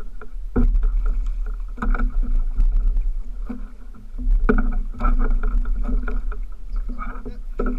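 Repeated knocks and bumps against a plastic fishing kayak, with water sloshing and rumble on the microphone, as a hooked fish is hand-lined to the boat's side. A steady hum runs underneath.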